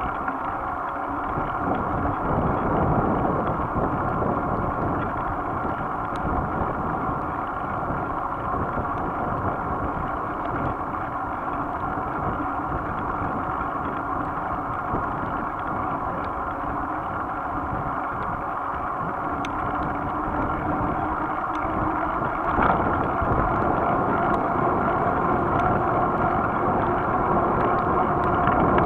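Wind buffeting the microphone of a camera on a moving bicycle, over a steady rush of road noise. It gets slightly louder near the end.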